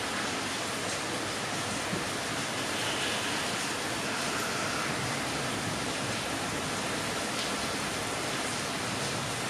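Steady, even hiss of noise with no distinct events, apart from a faint tick about two seconds in.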